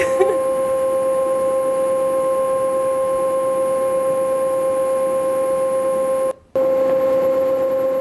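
A loud, steady electronic alarm tone held on one pitch with a few overtones, cutting out for a moment about six seconds in, then resuming.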